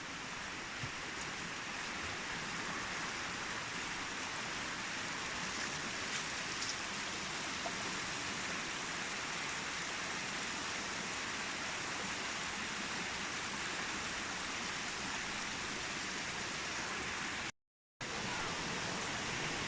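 Steady rushing of water, as from a mountain stream or waterfall. It cuts out completely for about half a second near the end.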